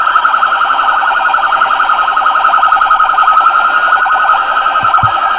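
Electronic siren warbling rapidly at a steady pitch, loud, then cutting off abruptly at the end.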